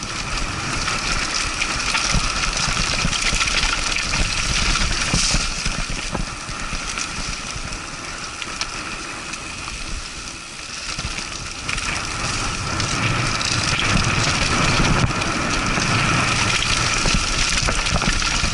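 Mountain bike descending a dirt singletrack, heard from the bike: a continuous rush of wind and tyre noise on dirt, with scattered small rattles and knocks. It eases off briefly about halfway through, then builds again.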